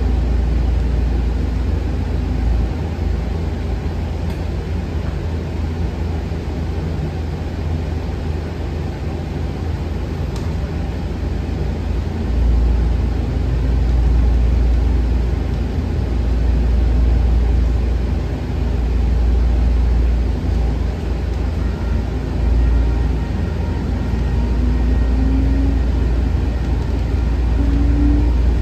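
A CAF SRV-I light rail car in motion, heard from inside the cabin: a steady low rumble of the running car, with a faint whine rising in pitch near the end.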